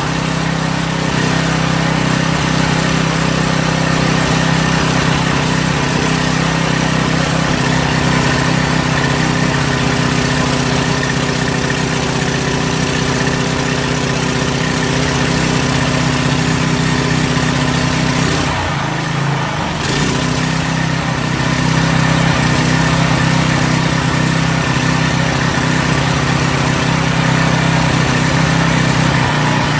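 Briggs & Stratton 175cc single-cylinder OHV engine on a pressure washer running steadily with no load on the pump. Its speed dips and shifts briefly about two-thirds of the way through as the throttle linkage is worked by hand. The owner traces its surging to the pressure-sensing pull-down cable, which sends it to full throttle without a load.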